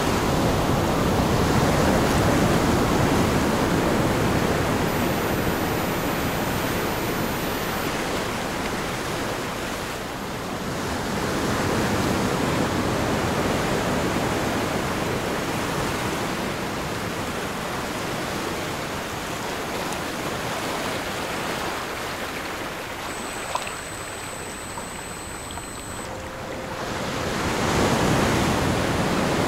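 Recorded ocean waves surging and receding in slow swells, one about every ten to fifteen seconds. Faint steady high tones sit over the surf, and one comes in briefly near the end.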